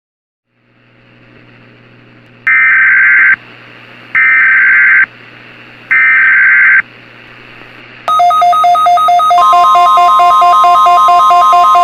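Emergency Alert System SAME header: three short, loud bursts of screeching digital data tones, each under a second long. About 8 seconds in, a loud electronic alert tone starts, pulsing tones joined about a second later by a steady tone.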